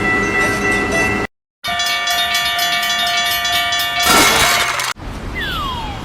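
Train horn blown twice as a chord of steady tones, a short blast then a longer one with a hissing burst near its end. A falling whistle glide follows near the end.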